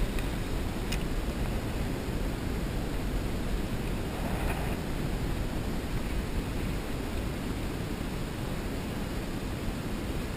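Steady wind rumble and hiss on the camera microphone, even throughout, with no distinct events.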